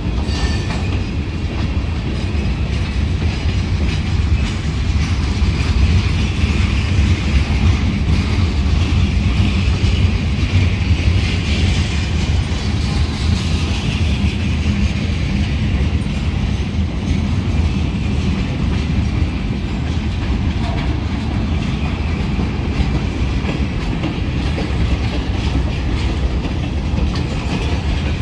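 Mixed freight train of boxcars, centerbeam flatcars and covered hoppers rolling past: a steady, loud rumble of steel wheels on the rails, with a brighter hissing edge in the middle of the passage.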